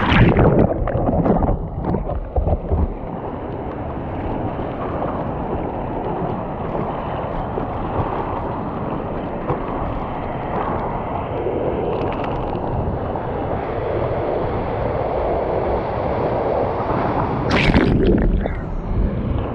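Surf water rushing over and splashing against a board-mounted action camera, with a heavy splash just after the start and another near the end. Between them is a steady wash of surf and wind noise.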